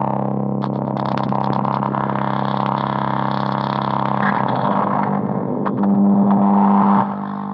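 Low, buzzing electronic drone with many overtones from a К176ЛА7 (CD4011 NAND-gate) logic-chip tone generator, run through software effects. About four seconds in the drone turns rougher and wavers, then a louder held tone sounds for about a second near the end.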